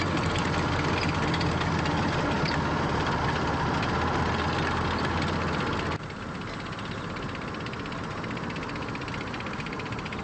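Steady low rumble of running vehicle engines, loud at first, then dropping suddenly about six seconds in to a quieter, even rumble.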